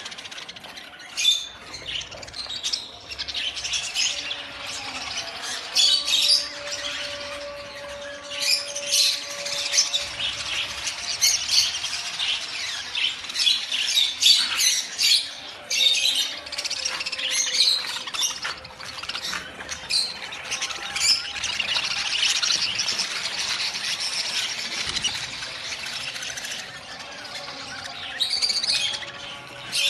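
A large flock of budgerigars packed in stacked shipping crates, chattering continuously with many overlapping chirps and squawks.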